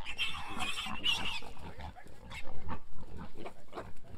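Pigs calling as piglets are caught: a loud, high-pitched, wavering call for about the first second and a half, then a run of short calls.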